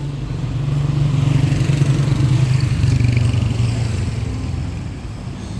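A motor vehicle's engine passing close by, growing louder to a peak after about two seconds and then fading away.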